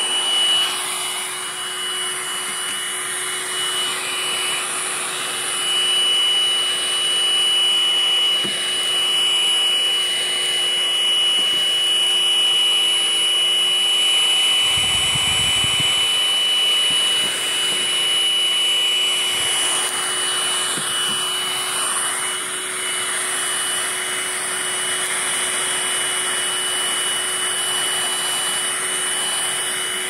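Vacuum cleaner running with a crevice tool: a steady motor whine over rushing air, getting a little louder and softer as the nozzle is worked about, drawing up loose dirt and crumbs.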